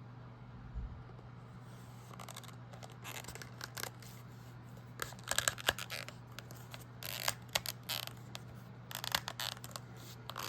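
ESEE Pacaya fixed-blade knife being fitted into a new leather sheath: a soft thump, then a series of short scrapes and rubs of steel and leather being handled, loudest about halfway through and again near the end.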